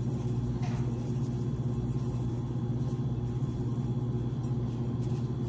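A steady low hum, with a faint, short rustle of seasoning shaken from a shaker can onto ground beef just under a second in.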